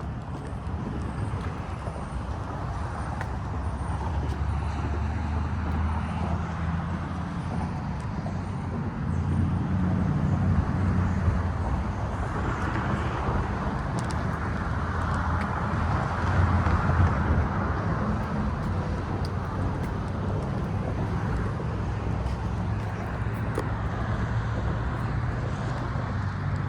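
Steady, continuous low rumble of road traffic, swelling louder for a few seconds around the middle.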